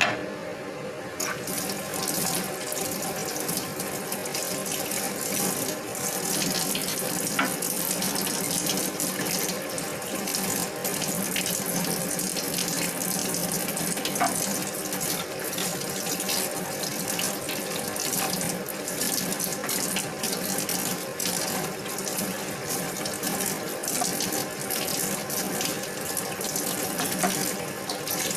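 Tap water running steadily into a stainless steel sink while leeks are rinsed and handled under it, with irregular splashes throughout.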